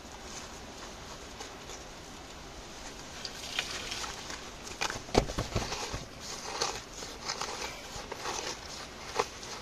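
Gloved hand scraping and rummaging through loose soil and gravel inside a rocky hole, with irregular crackles and small stones knocking. It starts about three seconds in, with a heavier thud about halfway through.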